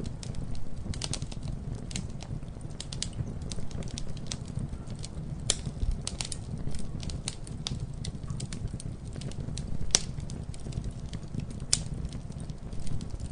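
Campfire burning with a steady low rumble and irregular crackles and pops of burning wood, a few sharper pops standing out about five and a half, ten and nearly twelve seconds in.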